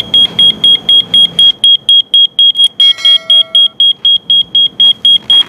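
Colour-changing cube digital alarm clock sounding its alarm: a loud, high-pitched electronic beep repeating rapidly, about five beeps a second. About three seconds in, a short separate lower tone sounds alongside for under a second.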